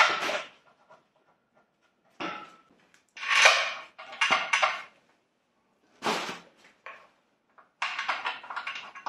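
Metal clanks and scrapes as a Vauxhall Frontera gearbox is shifted and lined up against the back of a Saab 2.3 turbo engine, in several separate clatters with pauses between them and a quick run of small clicks near the end.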